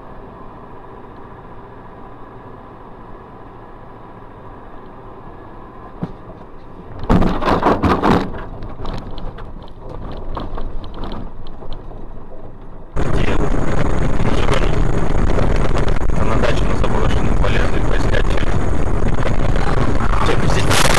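Car traffic-camera audio: steady road and engine noise, then a loud collision about seven seconds in that trails off over a few seconds. After an abrupt cut, loud steady rushing noise.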